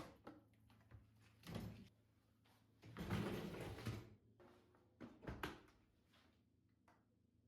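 A few short knocks and a longer sliding sound in the middle, the sounds of a door, drawer or cupboard being handled, over a faint steady hum.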